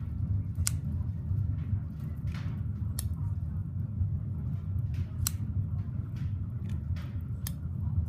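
A Damascus flipper knife flicked open and shut by hand: four sharp clicks a little over two seconds apart as the blade snaps open, with softer sliding sounds between them, over a steady low rumble.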